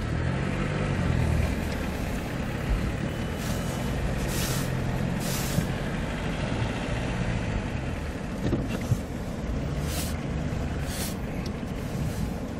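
A 4x4 vehicle's engine running at low revs close by, its pitch drifting up and down a little. Several short bursts of hiss come over it.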